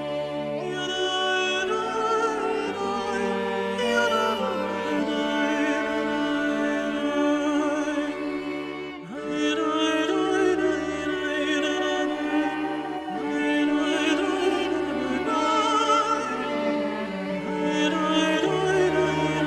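Background music: a melody with heavy vibrato, opera-like, over long held bass notes, with a brief drop in level about nine seconds in.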